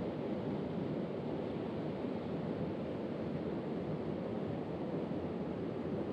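Steady rush of a small stream pouring over rocks in a whitewater riffle close to the microphone.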